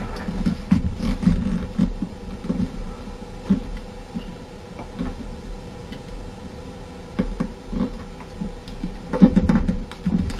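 A sheet of paper being folded and creased by hand on a tabletop: fingers pressing and sliding along the fold, making soft rubbing, rustling and light thuds. The handling is busiest in the first few seconds and again near the end, quieter in between.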